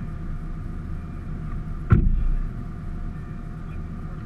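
Lamborghini Gallardo's V10 engine idling with a steady low rumble, with one sudden loud thump about two seconds in.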